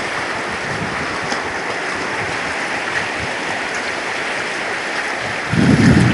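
Steady rushing of choppy sea water washing around a wooden jetty. Near the end, wind gusts buffet the microphone with a loud rumble.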